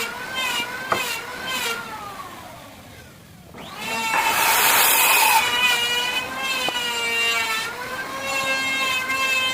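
Electric woodworking power tool motor whining, wavering in pitch, then winding down and fading. It spins back up with a loud rush, as of a cut into wood, about four seconds in, then settles into a steady whine.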